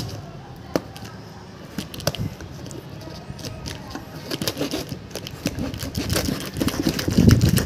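A blade cutting and scraping along packing tape on a cardboard carton, with irregular clicks and scratches. Louder rustling and scraping of the cardboard near the end.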